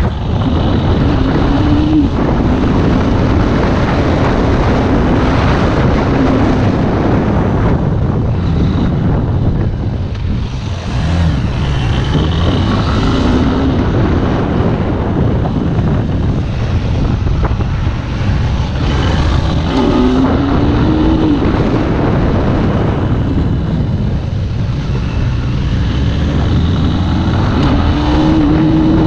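Motorcycle engine running on the road, its pitch rising and falling several times, with heavy wind rushing over the microphone.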